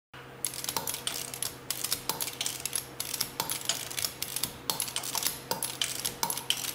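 Ratchet of a torque wrench clicking in quick runs of light metallic clicks as it is worked back and forth, torquing a wheel's lug nuts.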